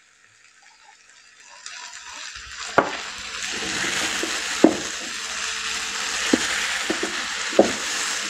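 Minced chicken and vegetables sizzling in a frying pan while being stirred, with a spoon knocking against the pan several times. The sizzle rises over the first two seconds, then holds steady.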